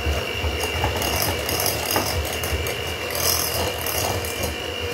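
Electric hand mixer running steadily with a constant high whine, its beaters whisking eggs and sugar together in a mixing bowl.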